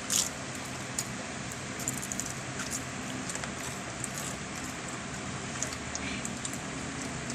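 Plastic tortilla-chip bag crinkling as a hand reaches in for chips, with scattered small crackles and crunches of chips being handled and eaten, over a steady low hum.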